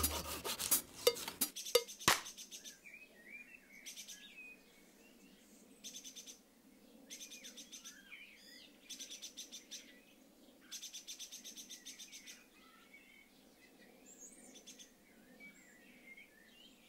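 Small birds chirping softly, with several separate bursts of rapid ticking, each lasting about a second, over a faint steady hiss. A few sharp knocks in the first two seconds.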